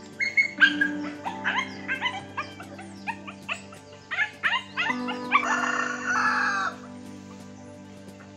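Bird calls: a quick run of short, rising chirps, then one longer, harsh held call about five seconds in, over soft background music.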